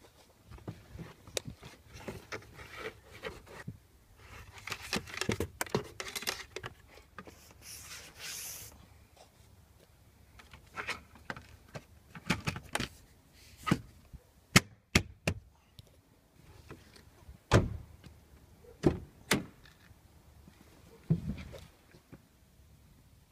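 Scattered clicks, knocks and rustling as a car's rubber door seal is pressed back on by hand and a plastic trim piece at the corner of the dashboard is clipped into place. The sharpest knocks come in the second half.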